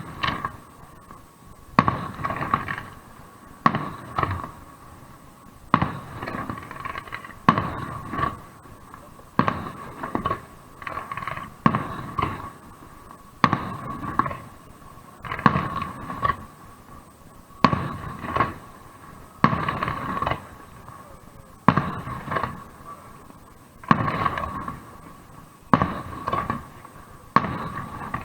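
Fireworks display: aerial shells bursting with a sharp bang about every two seconds, each followed by a crackling tail that echoes away.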